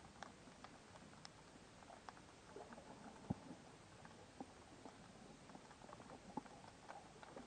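Faint underwater crackle: scattered small clicks and pops over a low hiss, with one sharper click a little past three seconds in.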